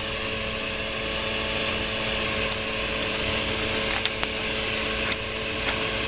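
A 12-volt automotive fan running steadily off solar panels, a constant whir with a steady hum, drawing air through a 4-inch PVC pipe. A few faint clicks sound over it.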